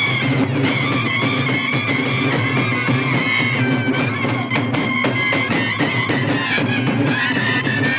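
Aare vadya folk music: aare frame drums beaten in fast, dense strokes under a wind instrument holding a long, slowly bending melody line.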